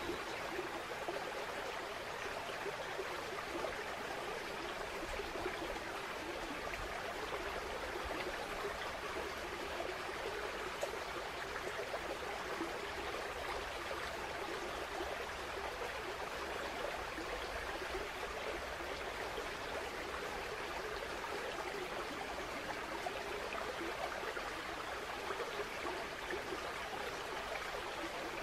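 A woodland stream flowing, a steady, unbroken rush of running water.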